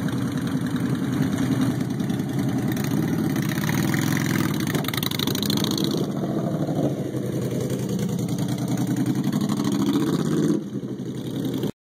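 Honda Shadow Phantom 750's V-twin with an aftermarket Vance & Hines exhaust running and revving, then accelerating away. Near the end, after a cut, a second motorcycle's engine is heard more quietly before the sound stops abruptly.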